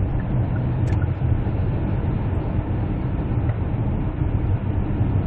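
Steady low drone of engine and tyre-road noise inside the cabin of a 2017 Kia Carnival diesel minivan cruising at highway speed, around 100 km/h.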